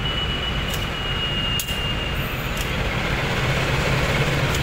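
Diesel engine of a KAI CC 201 diesel-electric locomotive running as it moves slowly past at close range, with a thin steady high whine for the first two seconds. The engine hum grows a little louder in the second half.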